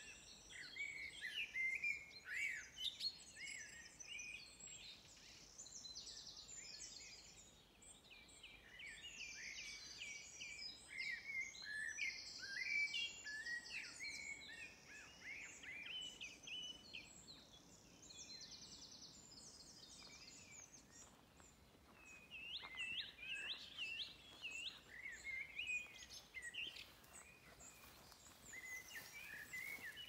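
Several songbirds singing over one another in a dense chorus of fast trills, chirps and short rising and falling phrases, thinning a little past the middle.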